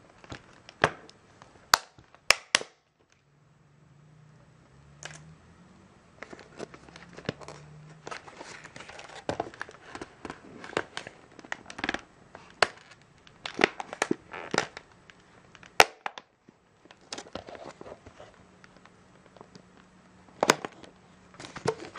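Stiff clear plastic blister packaging being handled and pried at: irregular crinkling and crackling, broken by sharp plastic snaps and clicks, the loudest about two seconds in and past the middle.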